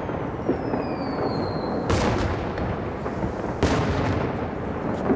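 Fireworks going off over the sea: two sharp booms, the first about two seconds in and the second a second and a half later, with a few smaller pops. A high whistle falls in pitch through the first two seconds and ends at the first boom.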